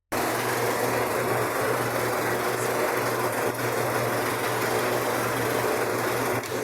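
A motor running steadily with a low hum, starting abruptly and dropping off near the end.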